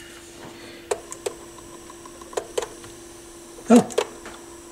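Pioneer PL-707 turntable's motor running with a steady hum, with a few light irregular ticks and a louder knock near the end. This is the motor noise, or rattle, that is being chased, which the repairer puts down to the motor sitting loosely on its rubber mount.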